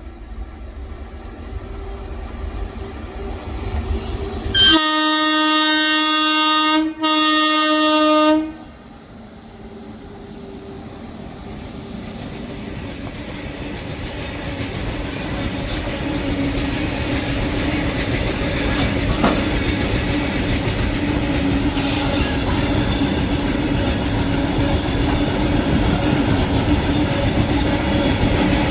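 WAG-7 electric locomotive's horn sounding a long blast and then a shorter one about five seconds in. After the horn, the freight train's rumble and wheel clatter grow steadily louder.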